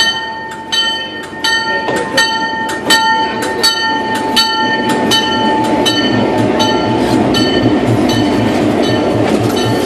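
GP7 diesel locomotive ringing its bell, about one stroke every three-quarters of a second, as it runs past close by. About six seconds in, the bell fades and the locomotive's diesel engine grows louder with a steady low throb.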